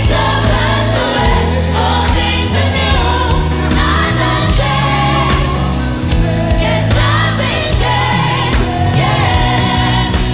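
Gospel choir singing a worship song with a live band: sustained bass and keyboard chords under the voices and a steady drum beat.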